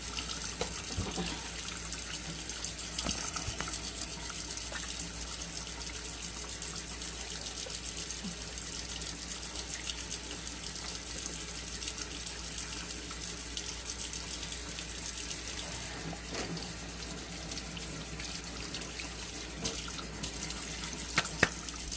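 Kitchen faucet running into a stainless steel sink while hands are rubbed and washed under the stream, a steady splashing. Two sharp knocks near the end.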